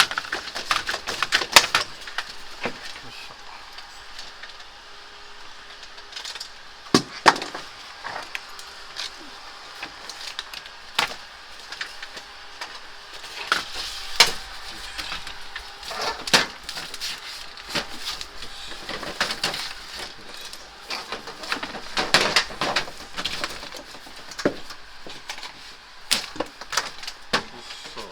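Scattered sharp clicks, knocks and light metallic clinks of hand-tool work on an air conditioner's piping and wiring as it is cut and disconnected for removal, with short bursts of rustling handling now and then.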